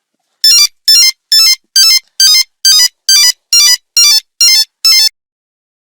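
Nokia 3310 monophonic ringtone: eleven short bursts of quickly stepping electronic beeps, about two bursts a second, ending about five seconds in.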